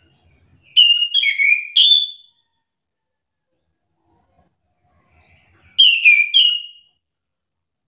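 Chestnut-capped thrush singing two short phrases of quick whistled notes, about a second in and again about six seconds in, with a pause between them.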